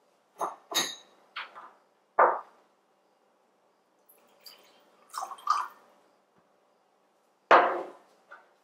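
Water poured from a plastic bottle into a glass tumbler, with a string of sharp clicks and knocks as the bottle and glass are handled on a wooden table. The loudest knock comes near the end.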